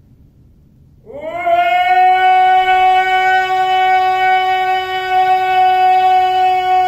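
A man chanting a galdr, a Norse incantation, in a loud galdr voice. About a second in he starts one long note that scoops up in pitch and then holds steady, strong and rich in overtones.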